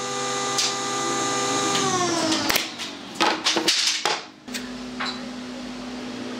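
A steady motor hum, typical of the air compressor that feeds the pneumatic brad nailer, winds down with a falling pitch about two seconds in. The nailer fires with a sharp snap early on, and a run of sharp knocks and clicks follows as the pine frame is handled. After a cut near the end, a different steady hum sets in.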